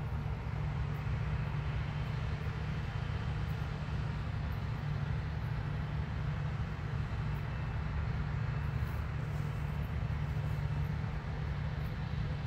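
New Holland combine harvester running steadily while harvesting grain: a constant low drone of its engine and threshing machinery.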